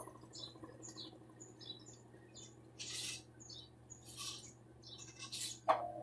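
Mueller Energy 8 kg top-loading washing machine in its final spin, the drum coasting: only a faint low hum with scattered faint high chirps and a few short hisses. Near the end the drive kicks back in with a sharp click and a steady whine returns as the spin speeds up again.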